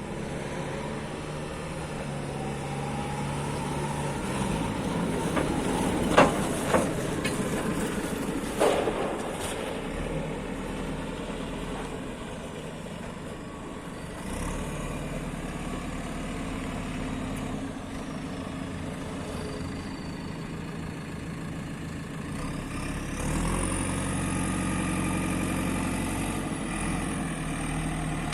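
JCB 3CX backhoe loader's diesel engine running steadily, with a few sharp metallic clunks a few seconds in. About three quarters of the way through, the engine speeds up and stays higher.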